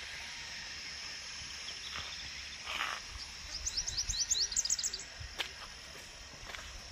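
A bird singing a quick run of about a dozen short, high, rising chirps in the middle, over a steady high background hiss.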